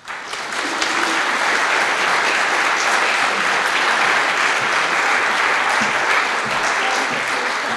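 Audience applauding, swelling quickly at the start and then holding steady.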